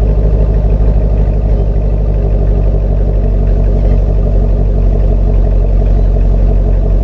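2019 Chevrolet Camaro SS's 6.2 L V8, fitted with long-tube headers and a catless X-pipe, idling steadily and loudly, heard right at its dual exhaust tips.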